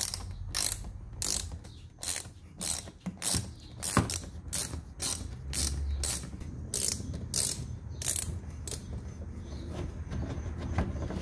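Quarter-inch drive ratchet clicking in repeated short strokes, about two a second, as it backs out T25 Torx screws from the inner wheel liner; the clicking stops near the end.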